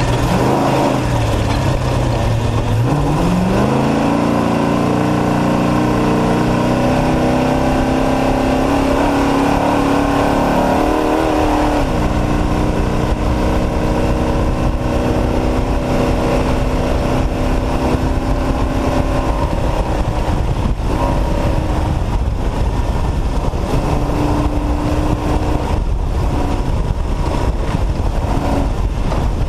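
Off-road race truck's engine accelerating hard: it revs up over the first few seconds and holds high revs, then eases off about twelve seconds in and runs steadier, over heavy low noise throughout.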